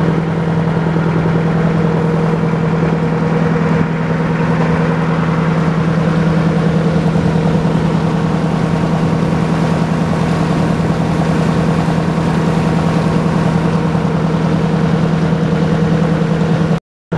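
Motorboat engine running steadily under way, a constant low hum with water rushing along the hull and churning in the wake. The sound drops out for a moment near the end.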